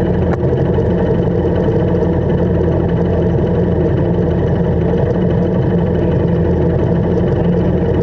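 Motorcycle engine idling steadily.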